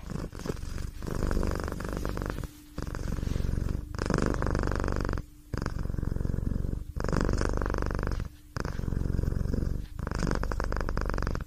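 Domestic cat purring close to the microphone, a continuous rumbling purr that breaks briefly about every second and a half as the cat breathes in and out.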